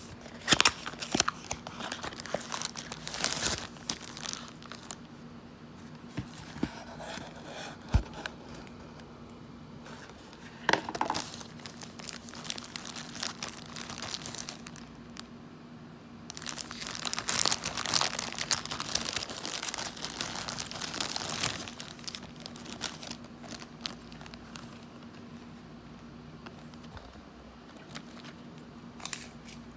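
Clear plastic packaging bags crinkling and rustling in irregular bursts as they are handled and opened, with an occasional sharp knock.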